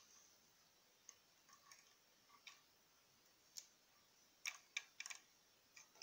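Faint, scattered plastic clicks and taps from a life-size LEGO P90 model being handled, with a quick cluster of sharper clicks about four and a half to five seconds in.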